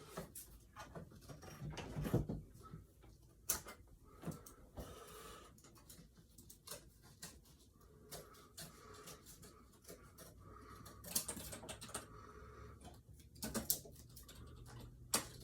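Scattered light clicks and knocks a few seconds apart, from small diecast toy cars and their packaging being handled on a table.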